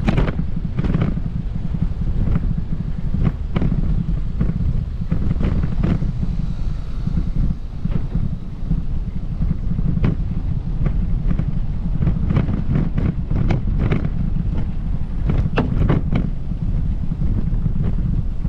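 Wind rumbling on the microphone, steady and low, with light taps every second or so throughout.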